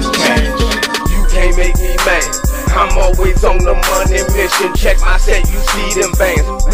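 Hip hop music with a heavy bass beat and vocals.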